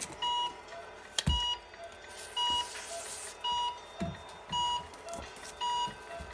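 Electronic beeper sounding a short, high beep about once a second, with a fainter lower beep between, a few sharp clicks and a brief hiss near the middle.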